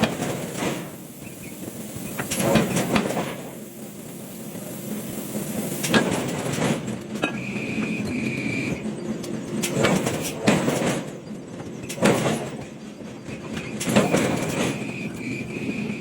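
Forging press working a massive hot steel workpiece: repeated metallic clanks and knocks over a continuous machine noise, with a high steady whine that sounds twice, first a little past the middle and again near the end.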